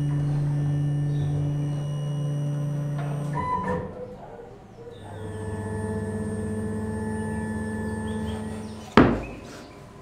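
CNC router axis drive motors whining steadily as the gantry moves through its homing run. The tone stops about three and a half seconds in and returns at a lower pitch a second or so later, as another axis moves. A single loud thud comes near the end.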